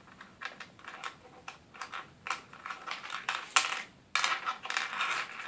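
Small plastic Kinder Surprise toy pieces being handled on a table: irregular light clicks and taps, with a short stretch of rustling about four seconds in.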